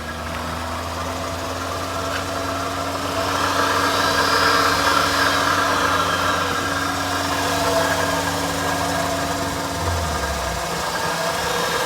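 Car engine held at a steady raised speed of about 1500 rpm with the accelerator pressed, running evenly. It gets louder over the first few seconds, and its low hum shifts near the end.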